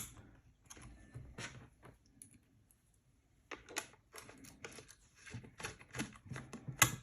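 Small clicks and rattles of screws and a screwdriver being handled while a plastic actuator enclosure is screwed shut. The clicks are scattered at first, pause briefly in the middle, then come thick and fast near the end.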